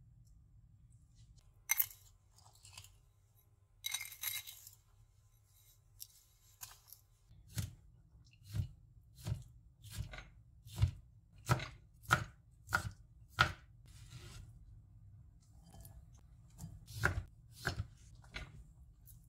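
Knife chopping food on a cutting board: a few scattered cuts, then a steady run of about nine chops, roughly one every two-thirds of a second, and a few more chops near the end.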